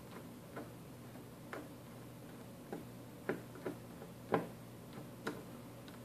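Hand screwdriver turning a small screw in a mini PC's motherboard, giving a series of short, sharp clicks at irregular spacing, the loudest a little past four seconds in.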